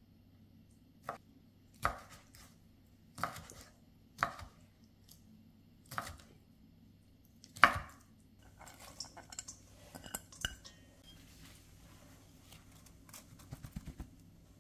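A chef's knife chopping peeled raw shrimp on a wooden cutting board: about six separate blade strikes, a second or so apart, the loudest about halfway through. After that come lighter, quicker clicks.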